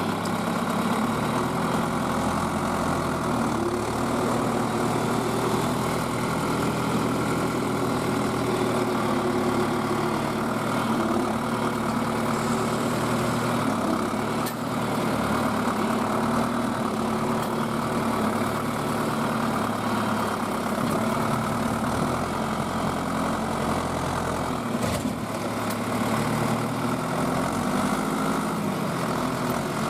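Tractor engine running steadily, its pitch stepping up and down a few times as the engine speed changes.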